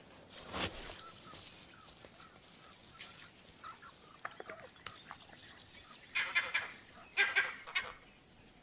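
Two short bursts of harsh, pitched animal calls, about six and seven seconds in, over faint bush ambience with a few small ticks.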